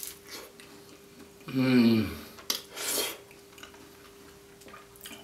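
A man chewing a mouthful of flaky meat pie, with a low hum of pleasure that falls in pitch about a second and a half in, followed by a couple of short chewing and crunching noises.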